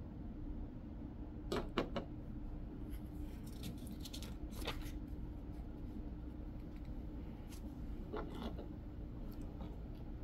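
Plastic Lego pieces clicking and knocking together as they are handled and set down: a few short clicks, the loudest pair about one and a half seconds in, over a steady low hum.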